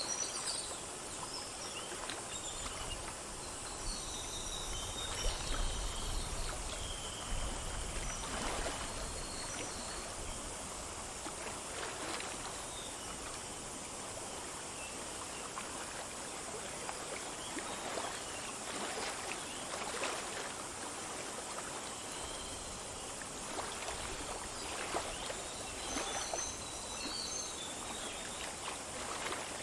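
Small forest stream flowing and splashing over stones, with a few high bird chirps near the start and again near the end.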